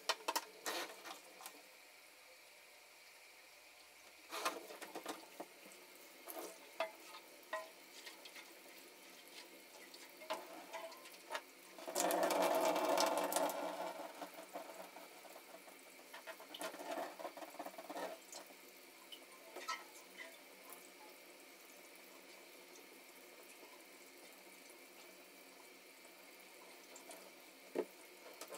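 Tap water running into a sink and into a steel fuel tank, with scattered knocks and clicks as the tank is handled. The water is loudest for about two seconds around twelve seconds in.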